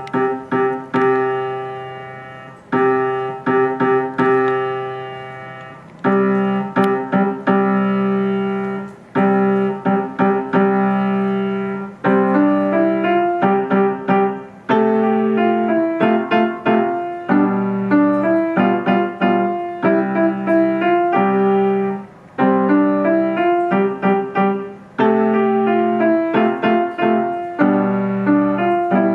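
Solo piano playing a simple piece: chords struck and held to die away, in short phrases that break off every few seconds, with a quicker stepping melody over a held bass from about halfway through.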